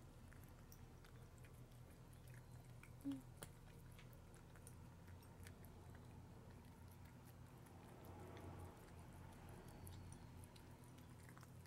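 A cat eating wet canned cat food from a bowl close to the microphone: faint wet chewing and lip-smacking clicks. One brief, short pitched sound about three seconds in.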